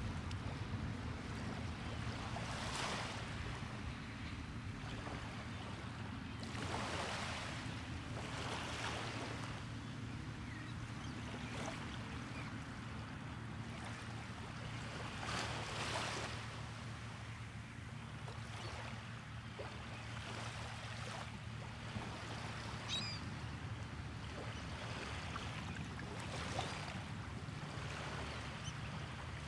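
Gentle surf: small waves breaking and washing in every few seconds over a steady low rumble. A brief high chirp comes about two-thirds of the way through.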